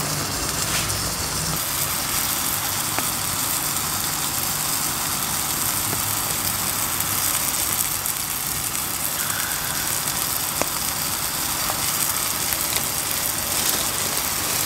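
Steak frying in a pan on a gas canister camping stove: a steady hiss of sizzling over the running burner, with a few faint clicks.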